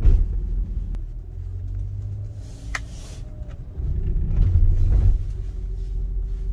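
Low engine and road rumble inside a car's cabin as it drives slowly, swelling louder for about a second around four seconds in. A brief hiss comes about halfway through.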